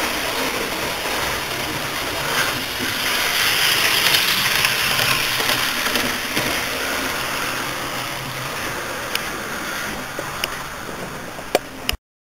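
Model train running on the layout: a steady rushing noise that swells a few seconds in and slowly eases, with a few sharp clicks near the end before the sound cuts off suddenly.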